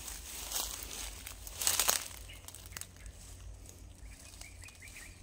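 Rustling and crunching, loudest in two bursts within the first two seconds, then quieter, with a few faint high chirps toward the end.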